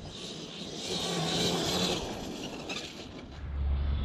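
Radio-controlled off-road car running at a distance on grass, a light hiss of motor and tyres. About three seconds in, a steady low rumble sets in.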